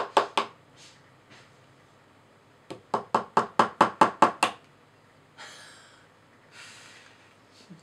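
Small hammer tapping rapidly at a chisel in a crumbly plaster dig-kit block: a few sharp taps right at the start, then a quick run of about ten taps a few seconds in.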